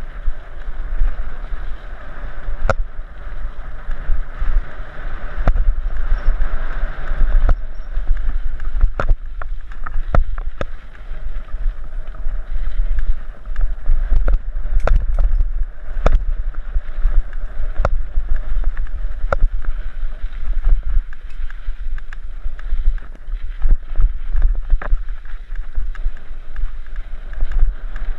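Mountain bike rolling fast over a dirt and gravel trail, heard from a helmet-mounted camera: a steady low wind rumble on the microphone, with sharp clicks and rattles from the bike as it hits bumps, many of them between about nine and twenty seconds in.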